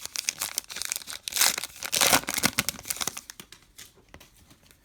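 Crinkling and tearing of a baseball card pack wrapper being ripped open and handled, loudest around one and a half and two seconds in, dying away after about three seconds.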